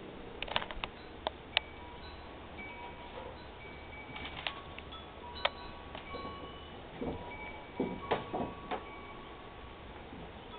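Soft chime tones ringing one after another at several different pitches, some held for a second or two, with a few light clicks and knocks scattered among them.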